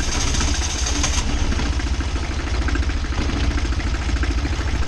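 Sailboat's inboard diesel engine, just restarted after its fuel was bled, running steadily with an even rhythmic beat. A higher whine over it stops about a second in.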